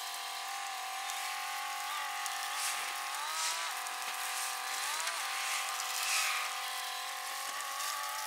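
Truck engine running steadily as it moves a heavy truck across a yard, revving up briefly twice near the middle.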